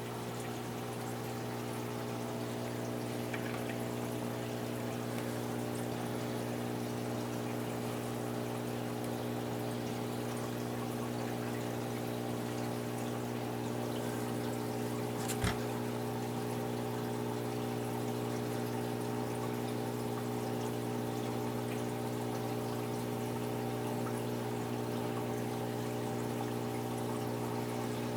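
Aquarium filter running: water pours and trickles steadily into the tank over a steady low hum, with a single sharp click about halfway through.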